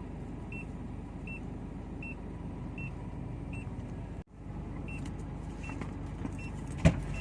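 Steady street traffic rumble with a short high beep repeating about every three quarters of a second. The sound cuts out for a moment about four seconds in, and there is a sharp knock near the end.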